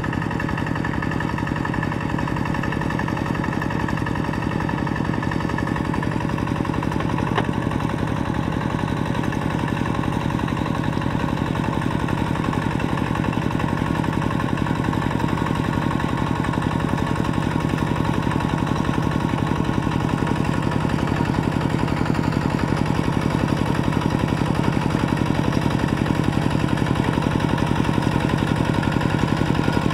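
Kubota RT120 single-cylinder diesel engine on a two-wheel walking tractor, running steadily as it works through a flooded, muddy rice paddy. It grows a little louder towards the end.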